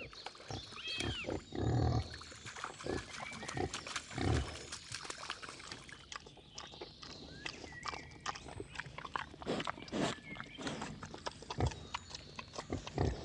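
Wild boar grunting low a few times, most loudly about two seconds in and again about four seconds in, with scuffling in the dirt and birds chirping.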